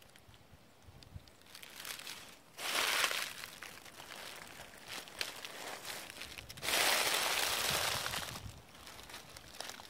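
Footsteps crunching through a thick layer of dry fallen leaves. There are two louder, drawn-out rustling crunches, near three seconds and near seven seconds in, with lighter crackling of leaves in between.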